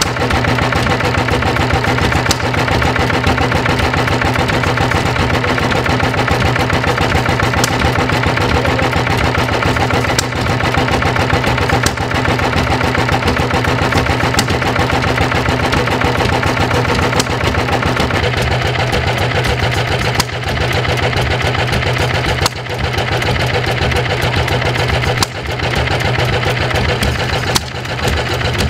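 Old stationary engine running steadily with a fast, even beat, its exposed valve gear clicking now and then. About two-thirds in the sound changes and dips briefly every two to three seconds.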